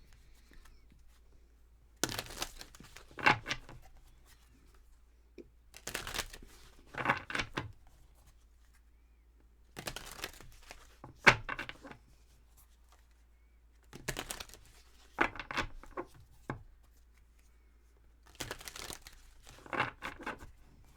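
Tarot cards being shuffled by hand, in five bursts of rapid rustling and clicking about four seconds apart.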